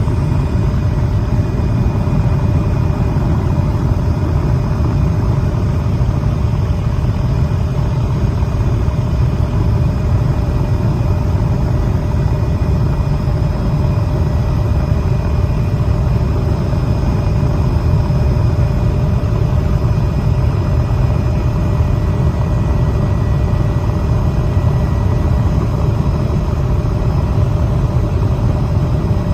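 Steady drone of an aircraft engine heard from inside the cabin: a deep, constant rumble with several fixed high whines over it.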